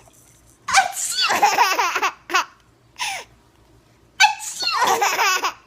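A six-month-old baby laughing in bursts: a long run of laughs about a second in, two short laughs, then another long run about four seconds in.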